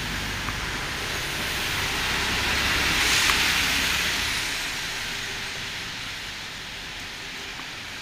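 Traffic passing on the bridge deck overhead: a rushing noise that swells to a peak about three seconds in and then fades, with a low rumble underneath that drops away soon after.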